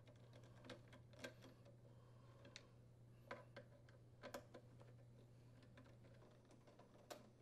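Near silence: a handful of faint, irregular clicks from a Torx screwdriver turning screws out of a dryer door's latch plate, over a faint low hum.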